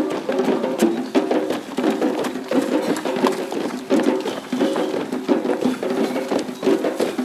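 A group of drummers playing a steady, repeating rhythm: many quick strokes over a recurring pattern of pitched notes.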